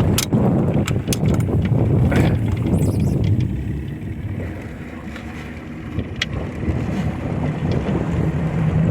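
Old Evinrude 85 two-stroke outboard motor running at low speed as the boat maneuvers, with wind buffeting the microphone. A few sharp knocks come in the first couple of seconds, and the engine sound drops off around the middle before picking up again near the end.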